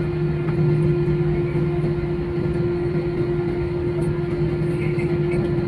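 Airliner cabin noise: the aircraft's engines drone steadily, with a constant low hum and a steady mid-pitched tone over a rumble that does not rise or fall.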